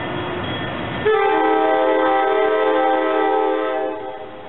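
SEPTA AEM-7 electric locomotive sounding its multi-tone air horn, one long chord of about three seconds starting about a second in, over the rumbling of the approaching train.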